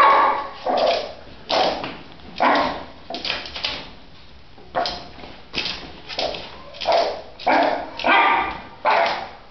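A small dog barking in short, sharp barks, about a dozen in quick succession with a brief pause about four seconds in, at its own reflection in a mirror.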